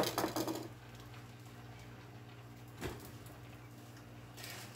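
Metal tongs clattering against a stainless steel frying pan, dying away within the first half-second. Then quiet kitchen room tone with a steady low hum and a single soft knock about three seconds in.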